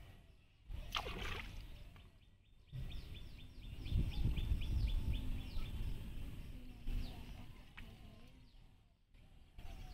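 Outdoor pond-side ambience: a bird calls a quick run of short falling chirps, about four a second for some three seconds, over a low rumbling noise, with a few abrupt drops to near silence.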